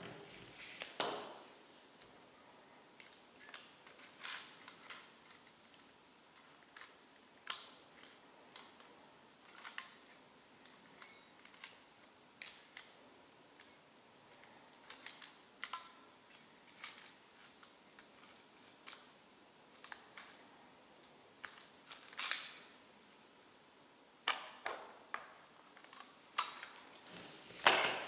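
Lock pick and tension wrench clicking against the pins and plug of a clear acrylic practice padlock during single pin picking: sparse, irregular sharp clicks, with a cluster of louder clicks near the end as the lock opens.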